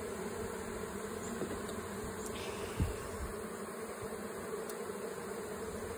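Honey bees buzzing in a steady hum, the air around an open hive full of bees that are flying out and landing back at the entrance, which the beekeeper takes for robbing. One light knock a little under three seconds in.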